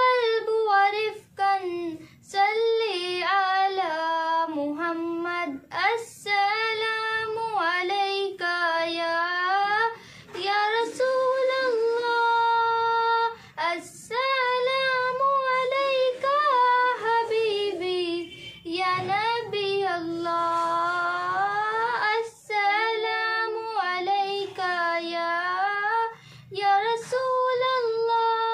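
Young girl singing an Arabic naat with no accompaniment: a slow melody sung in phrases, with a few long held notes.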